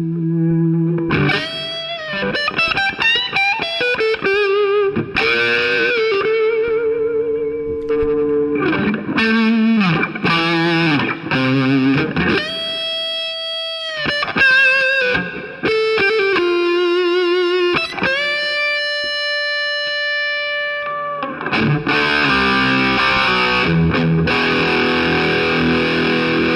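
G&L ASAT Deluxe Tribute electric guitar played with overdrive: a single-note lead line with string bends and held notes shaken with vibrato, turning to denser distorted chord riffing near the end.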